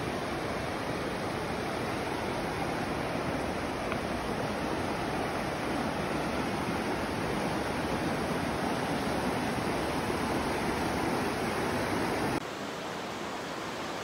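Mountain creek rapids rushing over rock ledges and boulders, making a steady, even sound of running water. About twelve seconds in it cuts off abruptly to a fainter, quieter hiss.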